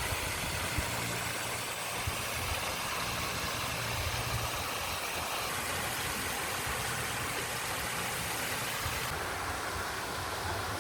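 A steady low engine rumble, like a vehicle idling, under an even background hiss.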